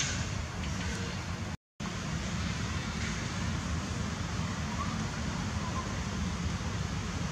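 Steady outdoor background noise with a low rumble, broken by a moment of dead silence at an edit cut just under two seconds in.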